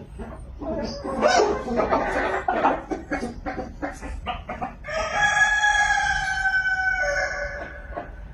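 Chickens clucking in a rapid, busy jumble, then about five seconds in a rooster crows once, one long call held for nearly three seconds.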